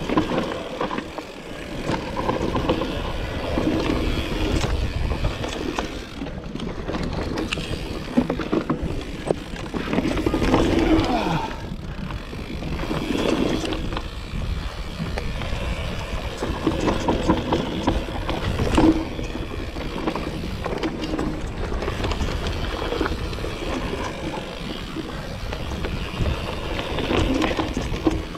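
Mountain bike ridden along a dirt trail: tyres rumbling over dirt and roots, with scattered knocks and rattles from the bike over bumps and steady wind rushing on the bike-mounted microphone.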